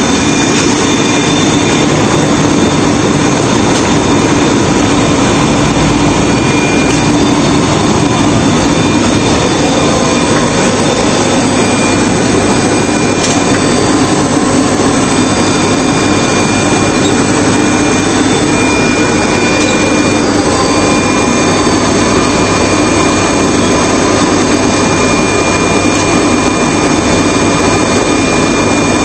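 Bubble-type vegetable washing machine running with its air-bubble blower and transfer conveyor switched on: a loud, steady mechanical drone with a few faint steady whines over it.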